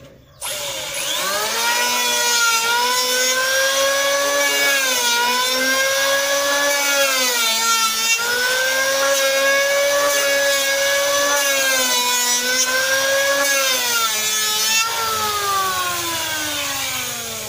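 Handheld electric planer starting up and planing a wooden board in several passes as a test cut with freshly sharpened blades. The motor's whine dips in pitch each time the blades bite into the wood, then falls away near the end as the motor winds down.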